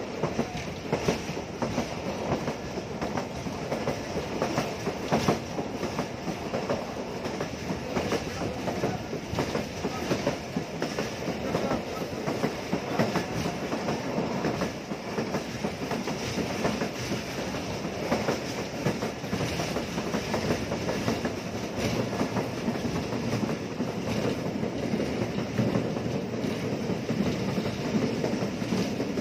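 Passenger train wheels running over the track at speed, heard from inside a coach: a steady rumble with frequent sharp clickety-clack clicks from the rail joints.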